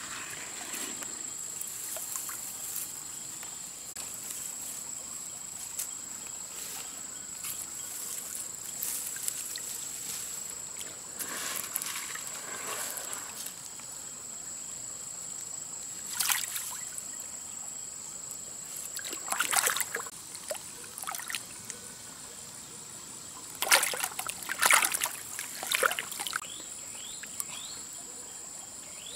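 Hands splashing and sloshing in a small pool of muddy water dug into creek gravel, with scattered splashes and gravel being scooped, the loudest cluster of splashes about three-quarters of the way through. A steady high-pitched tone runs underneath.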